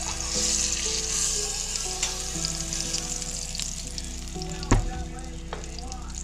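Breaded walleye fillets deep-frying in hot oil in a cast iron Dutch oven: a steady sizzle and crackle of bubbling oil. Metal tongs give one sharp knock about three-quarters of the way through.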